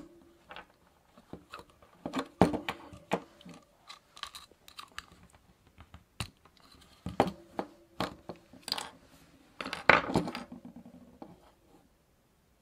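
Screwdriver prying the plastic underside cover off a Basta Duo bicycle dynamo: irregular plastic clicks, creaks and scrapes, loudest a little over two seconds in and again around ten seconds in, as the cover comes away.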